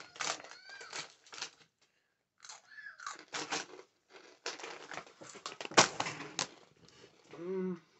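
Takis chip bag crinkling and rolled tortilla chips being crunched and chewed, a run of irregular sharp crackles with the loudest crunch about six seconds in. A short hum from the eater's voice near the end.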